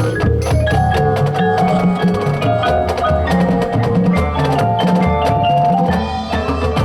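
High school marching drumline and front ensemble playing a competition show: rapid drum strokes over a stepping low bass line, with mallet keyboards holding the pitched melody.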